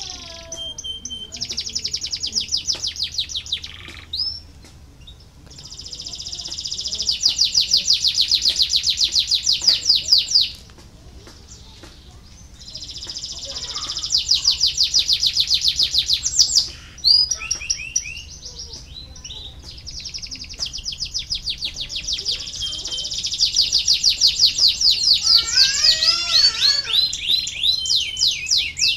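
Canary singing long rolling trills of fast repeated high notes in phrases several seconds long, with short pauses of scattered chirps between them.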